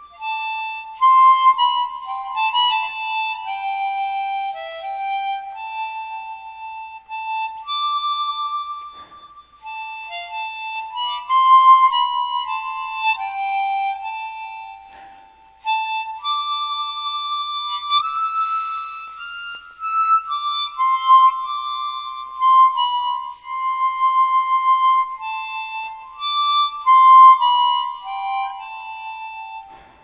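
Solo harmonica playing a slow instrumental melody of single held notes, unaccompanied, in phrases with short breaks between them.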